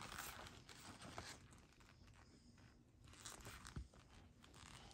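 Near silence, with faint rustling and light clicks from gloved hands handling thin cards and packaging.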